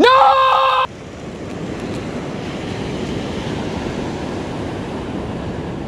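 A shouted "No!" cuts off about a second in. Steady ocean surf washing up the beach follows, with wind buffeting the microphone.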